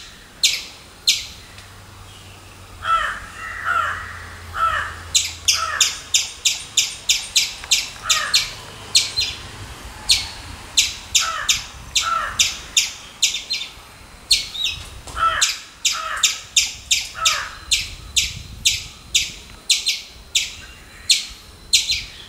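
Squirrel calling: short, sharp chips repeated in runs of about three a second. A few lower, drawn-out calls come in between.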